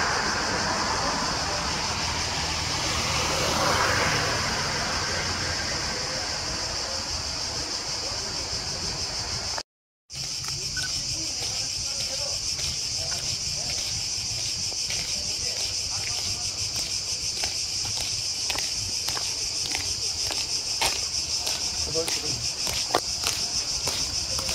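Steady high-pitched buzz of cicadas in the trees, with sharp clacks of the Evzone guards' hobnailed tsarouchia shoes striking the pavement as they march, more frequent in the second half.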